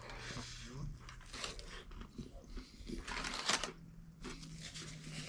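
Biting into and chewing a crispy fried chicken sandwich: irregular crunches and mouth noises close to the microphone, a stronger one about three and a half seconds in.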